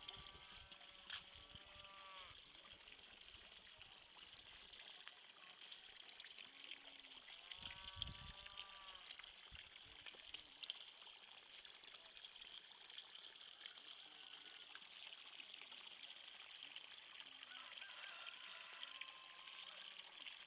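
A farmyard bird calls twice, each a drawn-out call of about a second, some six seconds apart, over a faint steady trickle of water.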